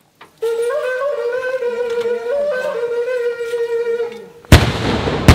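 A wind instrument plays a long held note that steps up and down a little in pitch. About four and a half seconds in, a loud bang cuts across it, followed by a rushing decay, and a second sharp crack comes near the end.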